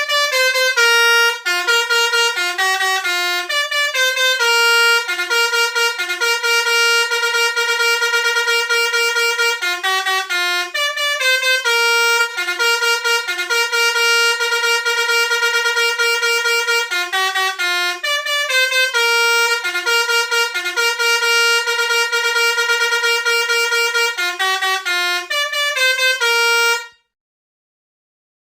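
Indonesian bus 'telolet' basuri musical air horn playing a continuous melody of held notes and quick stepwise runs. It stops abruptly near the end.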